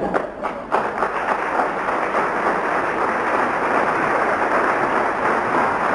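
Theatre audience applauding: a few scattered claps at first, then full, steady applause from just under a second in.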